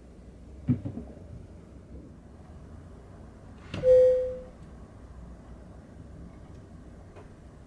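A soft low thump about a second in, then near the middle a click and a short, clear bell-like ding that rings out and fades within about half a second.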